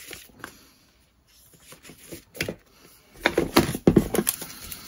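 Cardboard and paper packaging being handled: a few soft rustles, then from about three seconds in a run of louder rustling and scraping as items are lifted out of the box.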